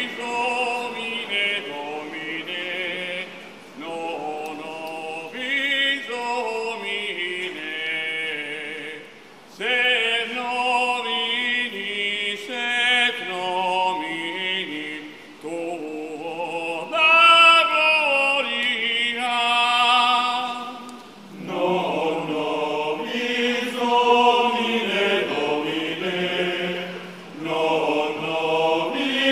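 A choir singing in long phrases, with short breaks for breath about every five or six seconds.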